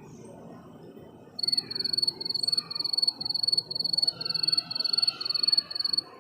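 Crickets meme sound effect, the stock 'awkward silence' clip: a high trilled chirp repeating about twice a second over fainter, lower calls. It starts about a second and a half in and stops just before the end.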